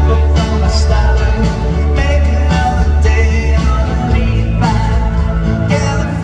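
Live rock band music heard from within the crowd, with strong bass, drums and an electric lead guitar playing gliding melodic lines.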